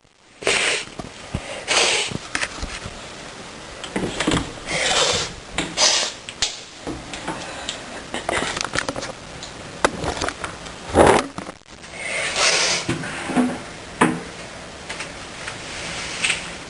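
A woman sniffing and snuffling repeatedly through a tickly, runny nose, in short bursts every second or two, with one stronger, fuller burst about eleven seconds in. A few small clicks and knocks fall between them.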